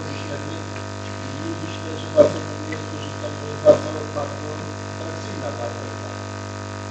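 Steady electrical mains hum with faint, indistinct voices in a hall, and two short sharp knocks about a second and a half apart near the middle.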